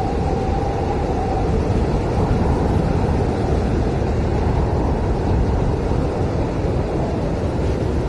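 Blizzard wind howling steadily in a continuous roar, with a faint whistling tone in the first second or so.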